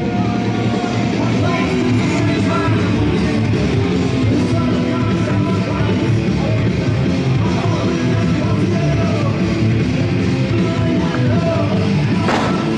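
Loud rock music with shouted vocals and a driving beat.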